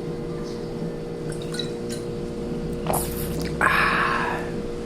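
A person drinking water and swallowing, with a wet gulp about three and a half seconds in, over a steady low hum.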